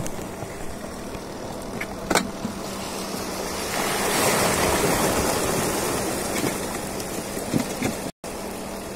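Seawater from a wave surging and rushing across concrete breakwater blocks, swelling about four seconds in and easing off, with a single sharp knock about two seconds in.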